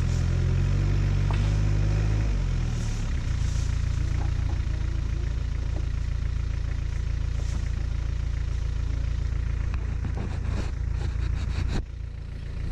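4WD vehicle's engine running as it creeps along a rough dirt track. The engine note wavers over the first few seconds, then holds steady, with a cluster of clicks and knocks from the vehicle about ten seconds in.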